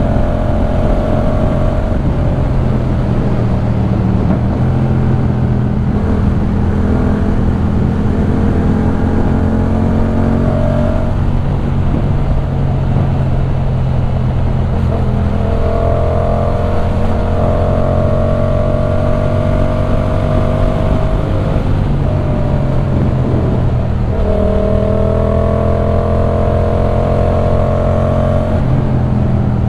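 Yamaha MT-07's 689 cc crossplane parallel-twin, breathing through a LeoVince One Evo full-system exhaust, pulling along on the road. The engine note holds steady for stretches and shifts pitch several times as the revs change.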